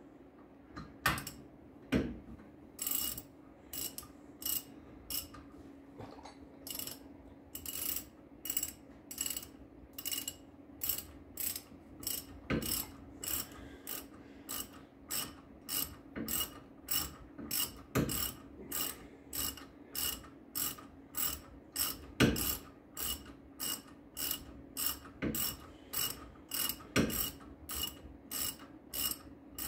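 Hand ratchet clicking on its back-strokes as the brake caliper mounting bolts are run in by hand rather than with an impact wrench, about three strokes every two seconds. A few louder knocks come in among them.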